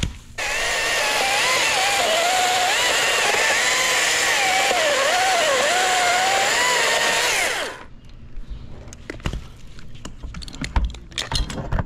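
Chainsaw running at full throttle as it cuts through a dead maple limb, its pitch wavering up and down as the chain loads in the wood. About eight seconds in the throttle is released and the engine winds down, followed by a few sharp knocks and thumps.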